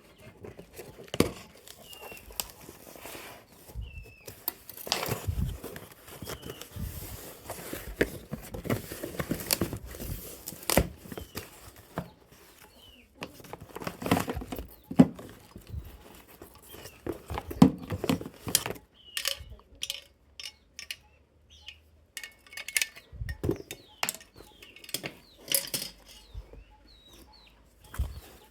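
A box and its packaging being handled, torn and crinkled open, with irregular knocks and rustles. Short bird chirps come through in the background.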